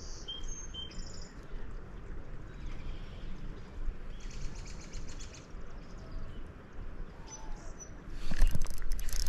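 Small birds chirping in short high notes over a steady low background rumble. About eight seconds in, a sudden louder commotion of clicks and noise begins.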